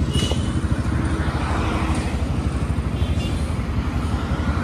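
Steady low rumble of a running vehicle moving along, with a fluttering low hum and no distinct events.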